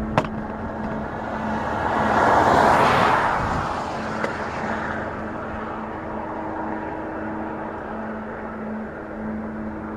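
A motor vehicle passes by: a broad rushing noise swells to a peak about three seconds in and fades away. Underneath runs a steady low hum of two held tones, and there is a sharp click right at the start.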